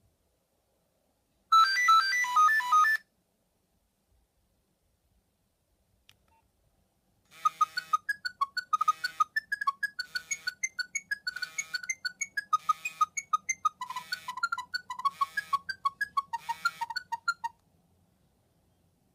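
Nokia 3510 ringtones played through the loudspeaker of a Nokia 7100 Supernova. A short snatch of one ringtone cuts off after about a second and a half. After a pause a quick melody of rapid, bright notes over a low accompaniment plays for about ten seconds and stops abruptly.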